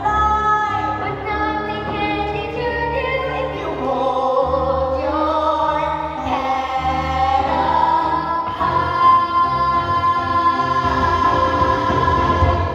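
Sung music with accompaniment: voices move through a melody, then hold one long high note over the last few seconds.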